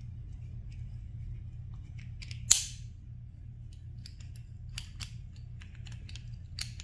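Small metal clicks and scrapes of a Zastava M88A Tokarev's slide parts being handled as the recoil spring and guide rod are worked free, with one sharper click about two and a half seconds in and a few more near the end.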